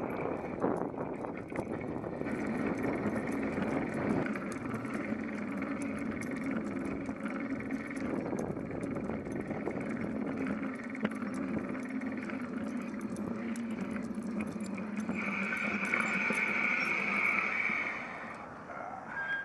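Bicycle riding along a concrete sidewalk, heard from a camera mounted on the bike: steady rolling noise with scattered rattles and clicks, dying down near the end.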